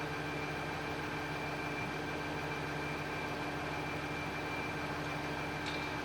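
Heavy engine running steadily at constant speed, with a thin high whine over its drone. A sharp tick comes in near the end.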